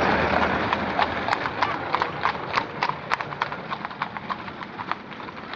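Horses' hooves clip-clopping in a quick, uneven clatter that fades gradually as the horses move away.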